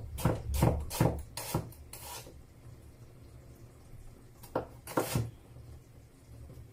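Knife cutting an onion against a board: about five knocks in the first two seconds, then a pause and two more a little before the five-second mark.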